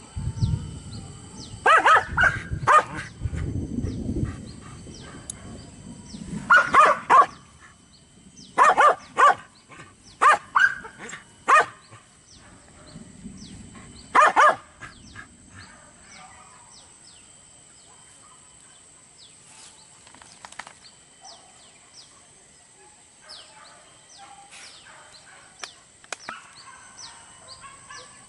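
Hunting dogs barking in about five short bouts of a few barks each, all in the first fifteen seconds. After that only faint scattered ticks remain.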